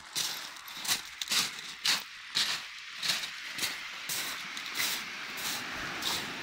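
Footsteps crunching on a shingle beach of loose pebbles, about two steps a second. About four seconds in, the crunching blends into a steadier hiss.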